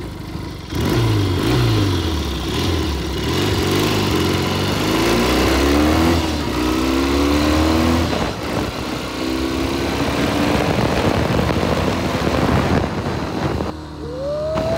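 Motorcycle engine running under way, the revs climbing and dropping several times as the rider accelerates and changes gear, easing off briefly near the end.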